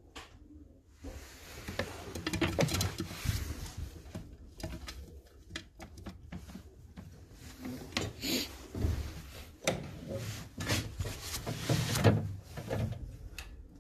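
Irregular taps, knocks and rustling, close to the microphone in a small room, as pigeons move about on and around a clay feeding bowl.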